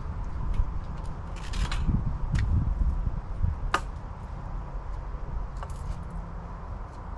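Low wind rumble on the microphone, with a scattering of light clicks and short rattles from handling; one sharper click comes about four seconds in.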